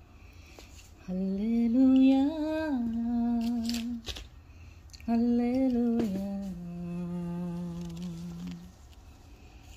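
A woman's unaccompanied voice singing a slow Christian song melody in two long phrases. The first rises and holds; the second steps down to a long held low note.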